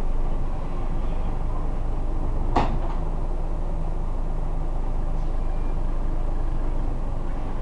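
Scania Omnidekka double-decker bus under way, its engine and running gear making a steady rumble heard from inside the lower deck. A single sharp clunk sounds about two and a half seconds in.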